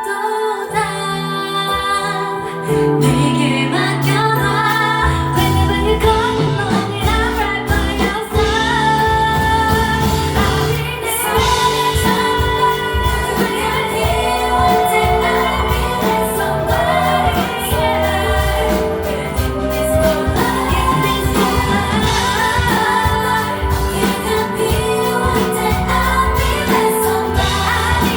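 Women singing a Korean pop song live over a band backing track, the voices sometimes together; bass and drums come in about three seconds in and the music stays full and steady after that.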